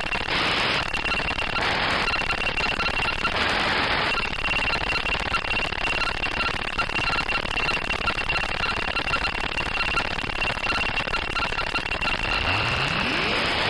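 Synthesized electronic noise from a VCV Rack 2 software modular synth patch: a steady hiss with a high, steady tone and a lower beep pulsing rapidly over it. Near the end a low tone sweeps upward in pitch.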